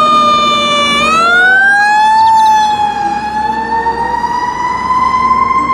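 Fire truck siren wailing: its pitch sags slightly, rises about a second in, dips again near the middle, then climbs slowly.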